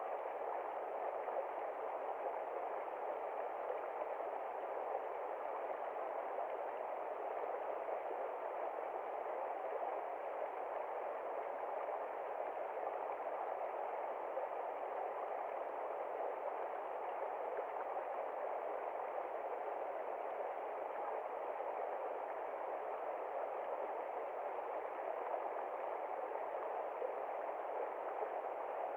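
Shallow stream running steadily over rocks: an even, unbroken rush of water.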